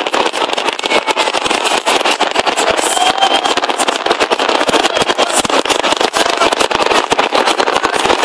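Aerial fireworks bursting in a dense, continuous run of cracks and bangs, over the noise of a large crowd.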